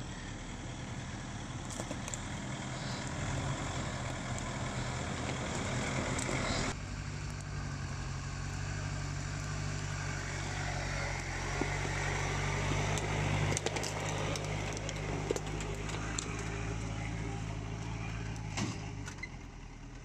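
Pickup truck engine running as it drives off-road, with a few knocks over the top. About seven seconds in, the sound changes abruptly and the engine note becomes steadier and clearer.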